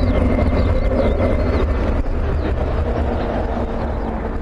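Jet noise from a Panavia Tornado's twin RB199 turbofans as the fighter climbs away after takeoff: a deep, continuous rumbling roar that slowly fades as it recedes.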